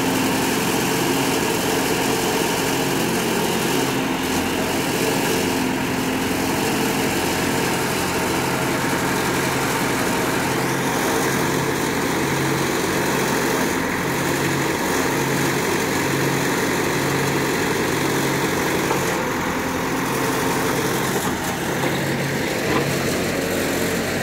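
Case backhoe loader's diesel engine running steadily while the backhoe arm works, digging soil and swinging it into a trolley.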